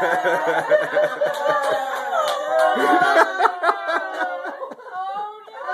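A woman laughing and clapping her hands in a run of quick claps, with a cheer of "yeah!" about halfway through.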